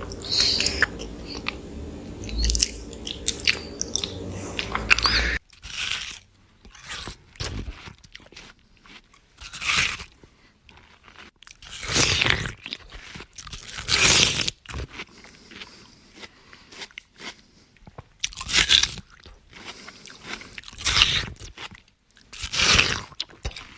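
Close-miked biting and chewing of soft cinnamon rolls, in separate bursts every second or two. For the first five seconds a low steady hum runs underneath and then cuts off suddenly.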